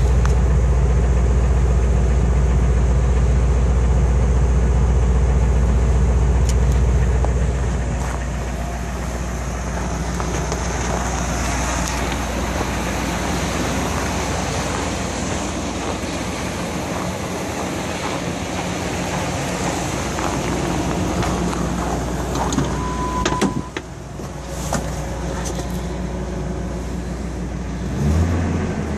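2000 Ford F-350's 5.4-litre V8 idling steadily after a cold start in freezing weather, loudest and deepest at the tailpipe for the first several seconds, then quieter. A short beep and a few clicks come about two-thirds through, and the engine begins to rev up near the end.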